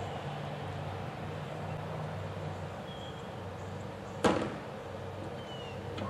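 The plastic lid of a wheeled trash cart slamming shut once, a sharp bang about four seconds in, over a low steady hum.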